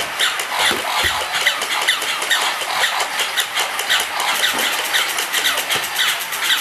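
Battery-powered walking plush toy dogs: small motors and gears running, with a steady rapid clicking and short high squeaks repeating several times a second as their legs move.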